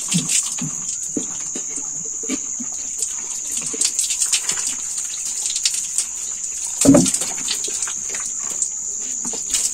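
Water poured from a plastic jerry can splashing over a person's body and onto a concrete floor in repeated spatters, over a steady high-pitched whine. A short loud sound stands out about seven seconds in.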